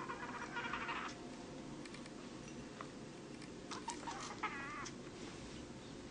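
A kitten meowing twice: a short call in the first second and a higher, wavering meow about four seconds in, with a few light clicks between.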